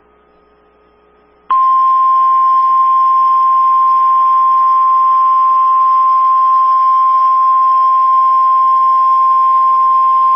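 Emergency Alert System warning alarm tone, the single steady 1050 Hz National Weather Service tone that signals a warning is about to be read. It starts about a second and a half in, holds unchanged at one pitch for about nine seconds, then cuts off abruptly.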